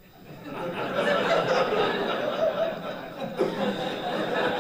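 Hall audience laughing, swelling up about half a second in and holding as a sustained wave of many voices.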